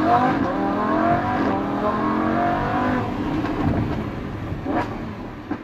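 Supercar engine accelerating: its pitch rises, holds for about three seconds, then fades, with two short sharp strokes near the end.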